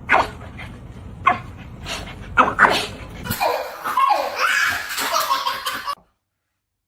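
A person laughing in loud bursts, running into continuous laughter that cuts off suddenly.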